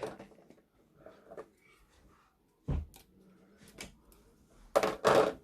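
Plastic model kit pieces being handled and fitted together: scattered small clicks and knocks, a sharper knock a little under three seconds in, and two louder short bursts near the end.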